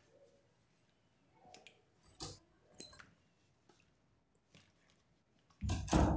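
Raw chicken pieces handled with gloved hands in a bowl of runny spice marinade: a couple of short wet squelches about two and three seconds in, then a louder, longer squelch near the end.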